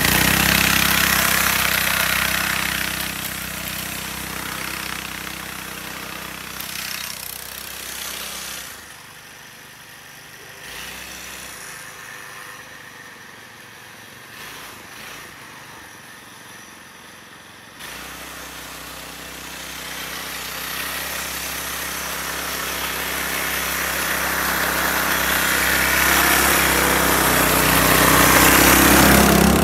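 A homemade track sled's 212cc ProPoint single-cylinder engine running as it drives off. The sound fades as it moves away and grows quieter still for several seconds in the middle. It then gets steadily louder as the sled comes back, loudest near the end.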